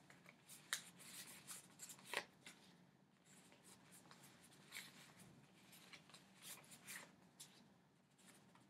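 Faint rustling and soft ticks of small paper slips being sorted through by hand.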